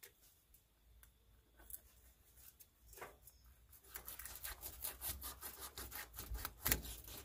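A knife cutting the belly flap off a kahawai on a cutting board: a few faint scrapes at first, then from about four seconds in a quick run of short sawing, scraping strokes through the fish.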